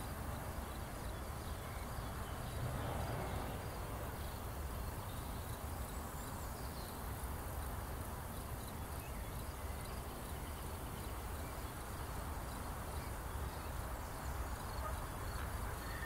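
Steady outdoor background noise with a low rumble, and faint high insect chirping repeating throughout.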